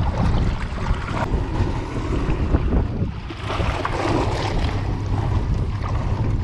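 Boat motor running under way at speed, a steady low rumble, with wind buffeting the microphone and water rushing past the hull.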